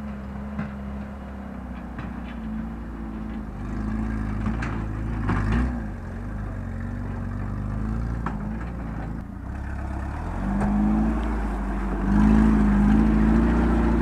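Off-road 4x4 engine running and pulling over boggy ground, its pitch wavering as the throttle rises and falls. It gets louder over the last few seconds as the UAZ-469 drives close past.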